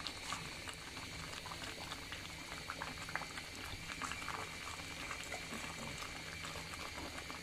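Thick haleem (lentil, grain and chicken stew) bubbling in a pot as it simmers down, with many small irregular plops and pops as bubbles break through the thickened surface.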